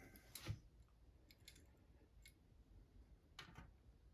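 Near silence with a few faint, scattered clicks and light taps as small hard objects are handled, the clearest about three and a half seconds in.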